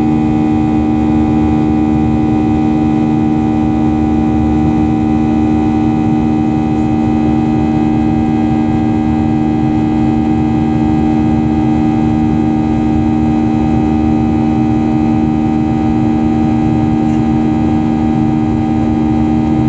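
Steady in-cabin drone of a Boeing 737's turbofan engines in flight: a constant rushing noise with a strong, even hum and fainter steady tones above it.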